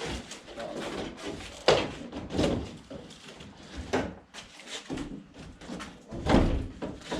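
Handling noise from a large shipping package being lifted and opened: irregular knocks, bangs and scrapes, loudest a little under two seconds in and again a little after six seconds in.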